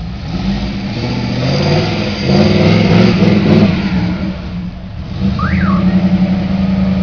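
Off-road buggy's engine revving hard as it climbs a steep dirt bank, loudest a few seconds in. It drops back briefly, then runs on at steadier revs with an even pulsing beat.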